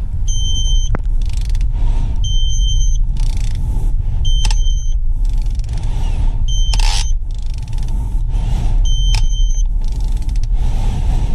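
Digital torque wrench beeping: short two-tone beeps about every two seconds, each with a click, over a steady low rumble.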